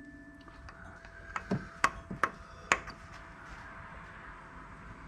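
A hammer striking a steel center punch against the staked ring of the rear axle lock nut on a Subaru hub. There are about five sharp metallic taps between one and a half and three seconds in, knocking the ring out of the axle's keyway slot.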